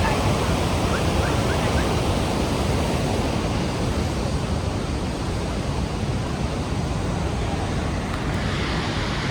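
Rhine Falls' cascading water rushing in a loud, steady, unbroken noise, heard at close range.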